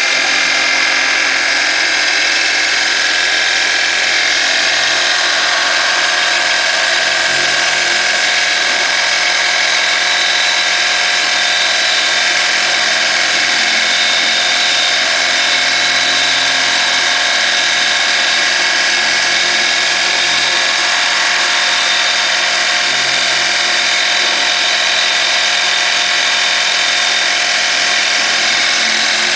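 Optimum BF20L mill-drill, converted to CNC, running its spindle while an end mill cuts pockets in an aluminium bar: a steady, even machine whine.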